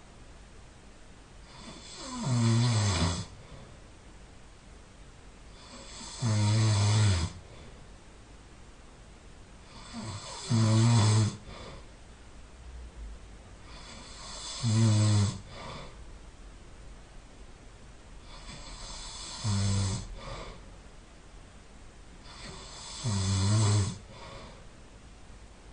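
A sleeping person snoring: six loud snores, about one every four seconds, each a low rattling buzz lasting about a second.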